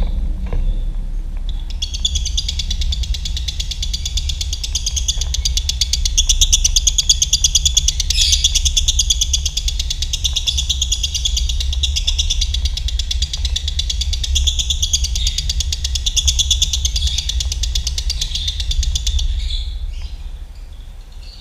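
Lovebird giving a long, unbroken, very fast chattering trill (the 'ngekek' song). It starts about two seconds in and stops near the end, over a steady low hum.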